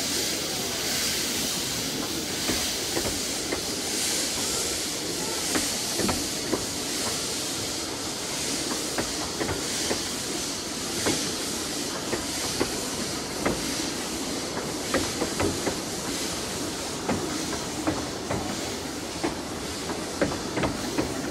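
Narrow-gauge steam locomotive No 8 'John of Gaunt' pulling away with its coaches: a steady hiss of steam that swells with each regular exhaust beat. Many short sharp clicks of wheels over the rail joints run under it as the carriages pass.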